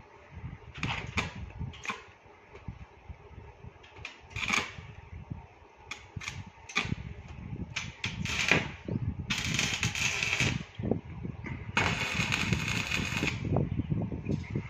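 Stick arc welding on a steel gate grid: the electrode arc strikes in short crackling bursts for tack welds, then crackles and sizzles steadily twice, in runs of about a second and a half each in the second half.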